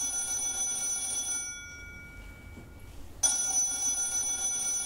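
Telephone bell ringing: one ring that dies away, then a second ring starting about three seconds in.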